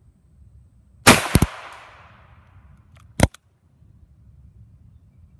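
A single shot from a Ruger Single Six .22 LR revolver about a second in, echoing off the surrounding woods. About two seconds later comes a short sharp click.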